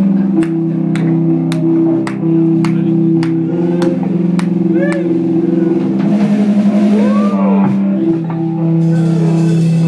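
Live rock band playing: electric guitars and bass holding low chords, with sharp drum hits about two a second through the first half.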